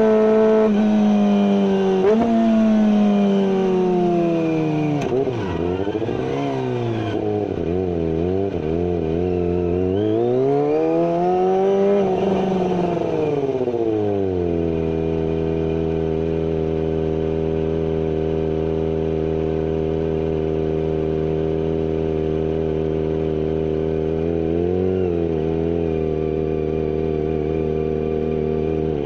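Kawasaki ZX-25R's 250 cc inline-four through a GPR carbon full-system exhaust with no dB killer: held at high revs, then dropping off, blipped several times and revved up and back down once. About halfway through it settles to a steady idle, with a small blip near the end.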